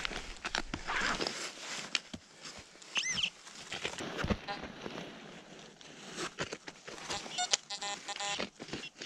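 Rustling and scraping in dry leaf litter and soil from digging and handling, with a short rising-and-falling electronic tone about three seconds in and a fast string of short beeps around eight seconds in from the metal detecting gear.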